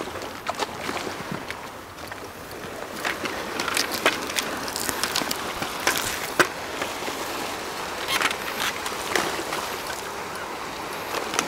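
Sea water washing against a rocky shore, a steady hiss of surf with scattered sharp clicks and knocks on top.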